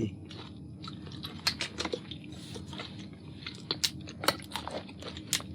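Lobster being chewed and bitten, close up, with irregular sharp clicks and crunches through the shell and meat.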